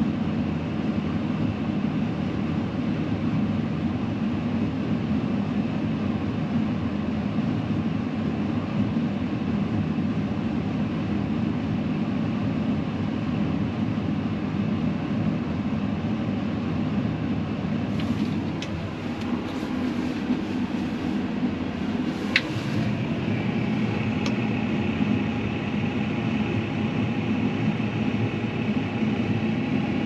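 Fendt 942 tractor's diesel engine running steadily under way, heard from inside the cab. A few light clicks come about two-thirds of the way through, and the engine note shifts slightly soon after.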